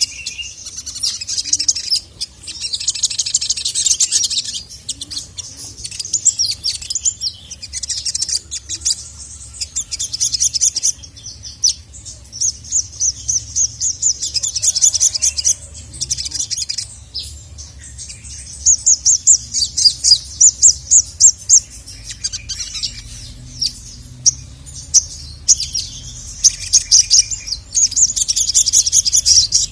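Sogon (brown-throated sunbird) calling in rapid, high-pitched chirping trills, delivered in phrases of one to three seconds with short pauses between them. It is a vigorous call meant to set male sogon singing.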